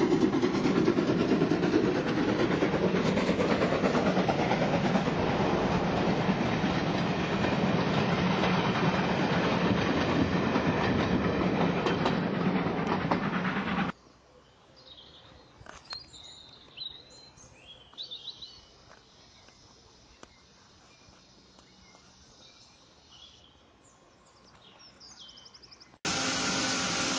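Steam-hauled passenger train rolling past, its coaches clattering steadily over the rails; the sound cuts off suddenly about halfway. A quiet stretch with small birds chirping follows, then near the end a loud, steady hiss of steam from a standing locomotive starts abruptly.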